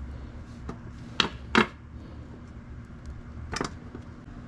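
Sharp clicks and knocks of hand tools being handled and set down on a table: two loud ones close together about a second in, a lighter one near the end, over a low steady hum.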